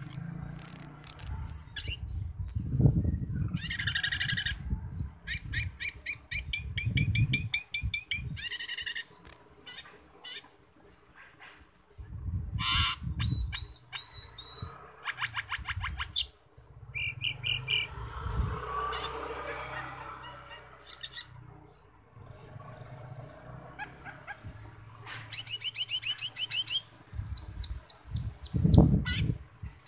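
Asian glossy starling (cucak keling) singing: a varied string of sharp high whistles, chirps and fast rattling trills broken by short pauses, with a few soft low thumps now and then.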